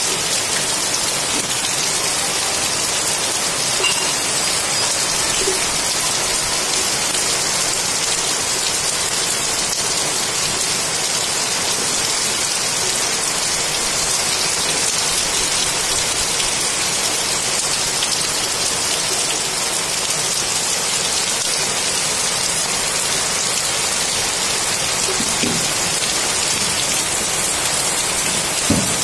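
Heavy rain falling steadily and splashing into standing water, an even hiss with one brief louder tap near the end.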